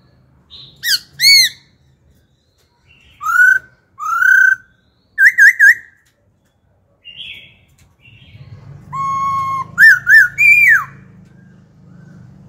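Caged black-throated laughingthrush singing loud, clear whistled phrases. First come pairs of rising-and-falling notes, then a quick triple note and a short harsh note, then a long steady whistle followed by a rapid run of notes ending in a falling one. A faint low hum sits under the second half.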